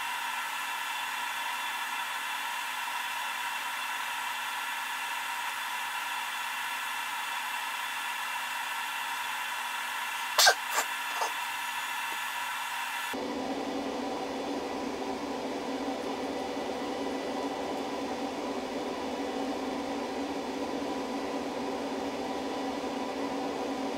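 Steady fan whine and hum of a high-current 12 V battery charger charging a LiFePO4 battery at about 60 amps. A few sharp clicks come about ten and a half seconds in, and a couple of seconds later the sound changes abruptly to a lower hum.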